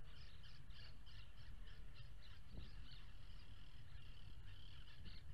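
A bird calling outdoors in a fast series of short, high notes, about four a second, thinning out after a few seconds, over a low steady rumble.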